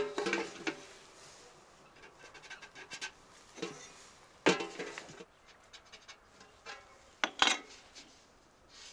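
A thin galvanized steel bucket is handled and marked with a metal square and pencil. Light taps and scrapes sound on the metal, with louder knocks about four and a half seconds and seven seconds in, the first ringing briefly.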